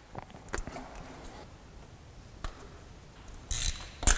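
Sparse light clicks and clinks of hand tools being handled and spark plug leads being pulled off the engine, with a short rustle about three and a half seconds in and a sharper click just before the end.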